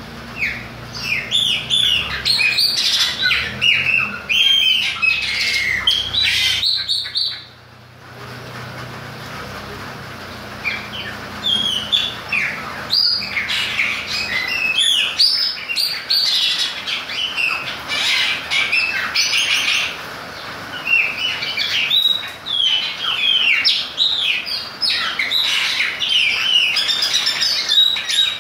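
Caged chopi blackbird (graúna, Gnorimopsar chopi) singing: a long run of quick, gliding chirps and squawky notes, broken by a short pause about seven seconds in.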